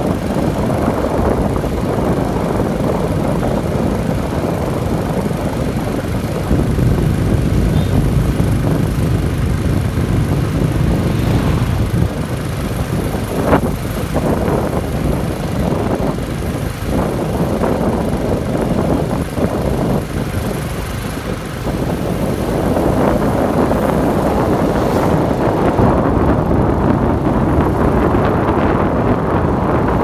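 Steady wind buffeting on the microphone while riding a bicycle along an asphalt road, with rumble from the moving ride. A single sharp click about halfway through.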